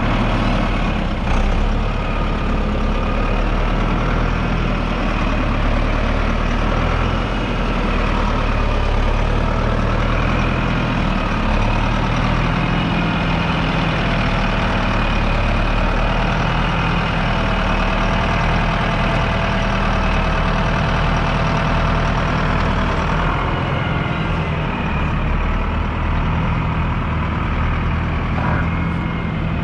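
A 1983 Fendt Farmer 309 LS tractor's 4.2-litre four-cylinder diesel engine idling steadily, with a faint whine that drifts slightly in pitch above the engine note.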